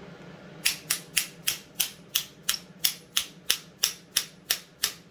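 Small hammer tapping a steel tube, about three quick, even, metallic taps a second, starting under a second in, driving a heated ball bearing onto a McCulloch chainsaw crankshaft.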